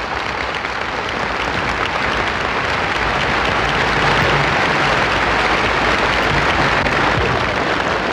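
A large outdoor crowd applauding. The ovation builds over the first few seconds and tapers off near the end.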